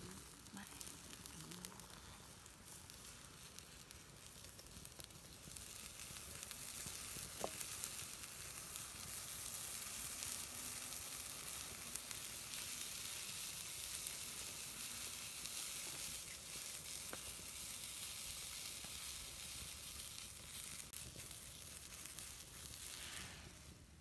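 Pork frying in a frying pan, sizzling steadily; the sizzle builds about five seconds in and cuts off abruptly near the end.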